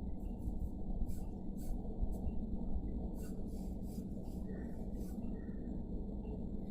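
Sketching strokes on paper: a run of short, irregular scratchy strokes, several a second, over a steady low hum.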